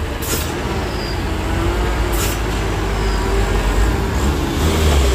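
Heavy truck's diesel engine running as the truck reverses downhill, getting louder near the end. Two short sharp hisses of air from its air brakes come about a third of a second in and about two seconds in.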